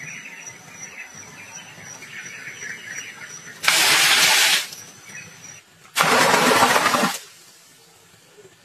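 Water poured from clay pots splashing down into a sunken pool, in two loud pours of about a second each, a couple of seconds apart.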